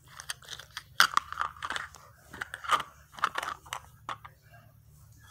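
Plastic toy food and toy dishes clicking and clattering as they are handled, in a string of irregular light knocks that die away near the end.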